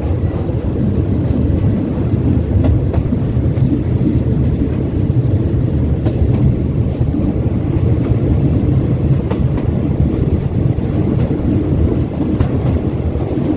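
Thai express passenger train running at speed, heard from an open coach window: a steady low rumble of wheels on rails, with scattered sharp clicks as the wheels pass over rail joints.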